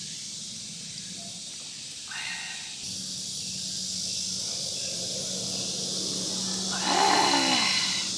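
A person drinking noodle broth from a metal bowl: a short slurp about two seconds in, then a voiced "ah" of satisfaction near the end as the bowl comes down, over a steady high hiss.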